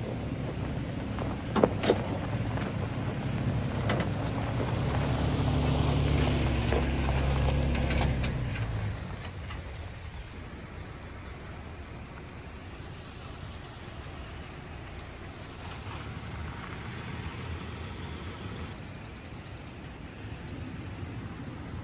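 Vehicle on the move: a steady low rumble of engine and road noise, louder for the first eight seconds or so, with a couple of sharp knocks about two seconds in. After that it is a quieter, even road noise.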